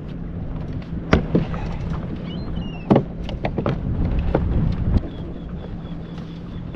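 Irregular sharp knocks and clanks as a pole-mounted sonar transducer is handled and fitted into its mount on an aluminium boat's bow, the loudest about one and three seconds in, over a steady low hum. A faint, rapidly repeated high beep starts about five seconds in.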